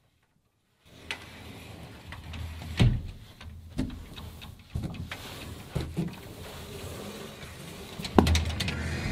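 After about a second of dead silence, a low rumble with a series of knocks and thuds, the loudest about three seconds in and another near the end.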